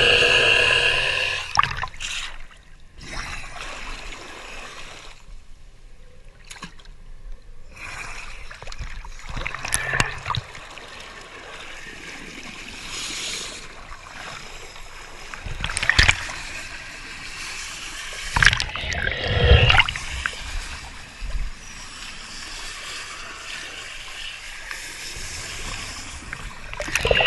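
Water sloshing and splashing at the surface against a boat hull, with scattered knocks and bumps. Near the start, the steady whine of the underwater rotary hull-cleaning brush fades out.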